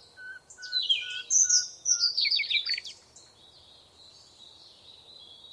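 Birdsong: a steady series of short, even whistled notes, about two a second, with a loud burst of high twittering song full of quick falling notes from about one to three seconds in. Fainter high chirping follows.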